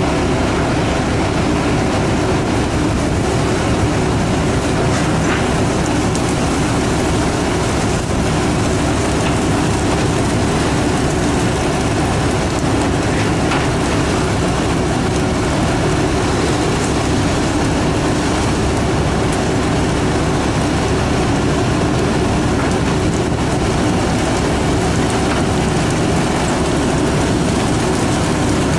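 Steady, loud rumble and hiss of a fishing trawler's engines and deck machinery, unbroken throughout.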